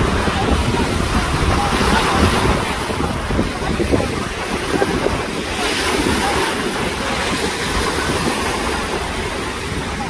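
Sea waves washing in the shallows, with wind buffeting the microphone as a steady low rumble.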